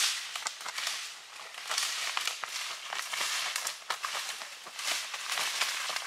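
Dry leaf litter crunching and crackling in a dense run of sharp snaps, from a hunter's footsteps and a shot wild turkey flopping and beating its wings in the leaves.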